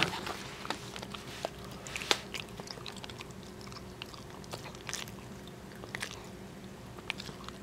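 Cat chewing treats, with small irregular crunches and clicks a few times a second.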